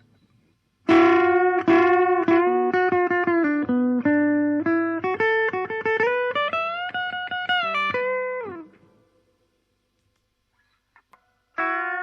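Electric guitar played through a transistor treble-booster circuit: a run of picked single notes and short phrases that starts about a second in and dies away around three-quarters of the way through, then resumes just before the end.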